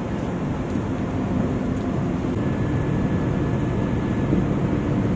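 Steady drone of a ship's machinery with wind on an open deck, even throughout, with no distinct pumping strokes or knocks standing out.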